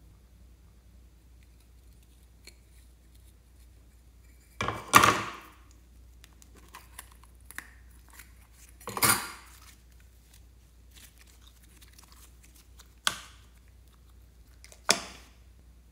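Slime and small items being handled in a glass dish: four separate short handling sounds in a quiet room. Two longer, noisy sticky sounds come about five and nine seconds in, the first being the loudest, then two sharp clicks near the end.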